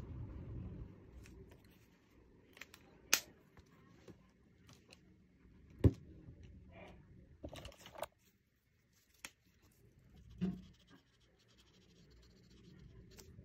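Marker strokes scratching on paper, with a few sharp clicks and taps in between.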